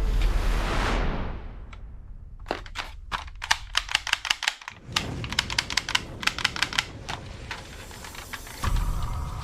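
Background music fades out, then a run of quick, sharp clicks, several a second, for about five seconds.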